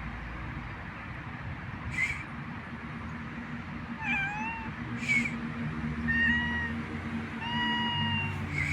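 Stray cat meowing three times from about four seconds in, the later calls longer and held more steadily. A short high chirp repeats about every three seconds over a steady low rumble.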